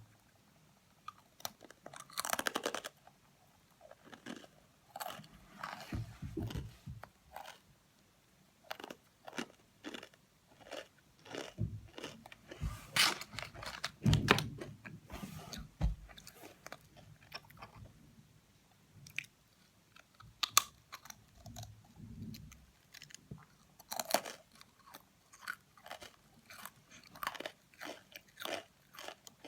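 A crisp fortune cookie being bitten and chewed close to the microphone: irregular dry crunches and crackles, some louder bites, with short quiet gaps between mouthfuls.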